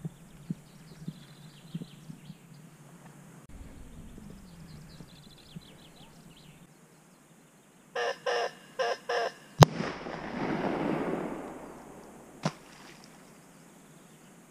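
Small birds chirping faintly, then four short calls from a larger bird. A sharp crack follows, the loudest sound, trailed by a rushing noise for about two seconds, and a smaller crack comes near the end.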